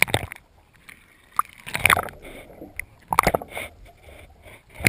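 Water sloshing and rushing against a GoPro's waterproof housing held underwater just below the surface, heard in four irregular, muffled surges.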